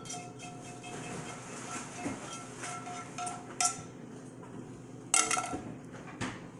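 A utensil scraping and tapping against a non-stick frying pan, knocking cooked meat crumbles out of it. It makes a series of light clinks with the pan ringing briefly, and a few sharper knocks about three and a half and five seconds in.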